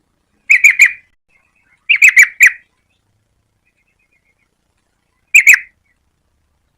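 Yellow-vented bulbul calling in short bursts of quick, sharp chattering notes: three notes about half a second in, four more near two seconds, and two near the end.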